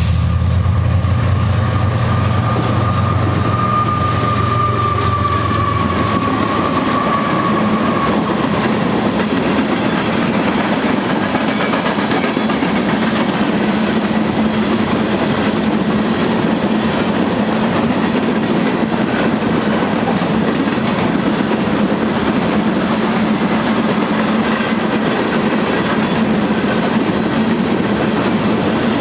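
Union Pacific freight train passing close by. For the first several seconds the lead EMD diesel locomotives' engines hum loudly, with a high whine that falls slightly and fades by about eight seconds. A long string of coal hopper cars then rolls past, its wheels making a steady rumble and clickety-clack on the rails.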